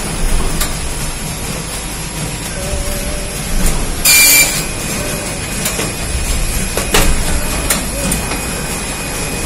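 Robertson single-clamp perfect binding machine running, a steady mechanical noise with a few sharp clicks as the book clamp travels over the glue rollers. A short, loud hiss comes about four seconds in.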